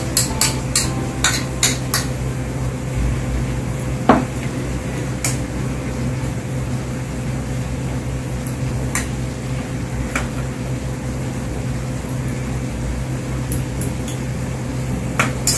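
Metal chopsticks clicking and scraping against a stainless steel wok and a small bowl while stir-frying napa cabbage: a quick run of clicks at first, one louder knock about four seconds in, then occasional taps as the cabbage is stirred. A steady low hum runs underneath.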